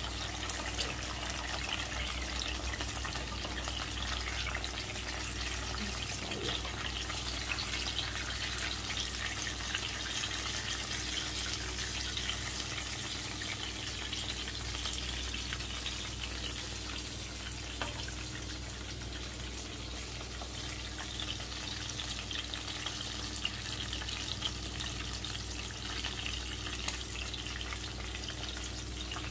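Eggs frying in a nonstick frying pan, a steady sizzle, with now and then a light scrape or tap of a wooden spatula against the pan.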